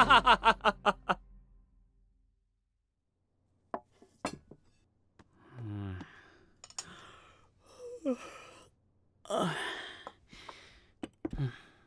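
Several men's voices sighing and groaning, each sound falling in pitch, after two short clicks: the sounds of people just woken up in the morning.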